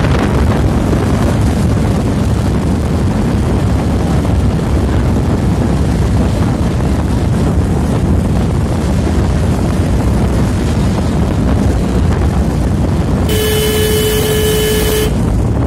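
Steady rumble of a moving vehicle with wind buffeting the microphone as it travels along a road. Near the end a vehicle horn sounds once, a steady note held for about two seconds.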